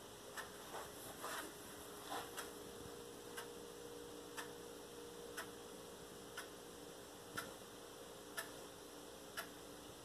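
A clock ticking faintly and evenly, one tick a second, over a low steady room hum. A few softer clicks and rustles come in the first couple of seconds.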